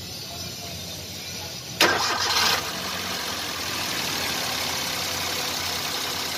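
Maruti Suzuki WagonR K-series three-cylinder petrol engine starting up. It catches a little under two seconds in with a brief loud flare, then settles into a steady idle. It starts after a timing chain replacement, the sign that the cam and crank timing is set right.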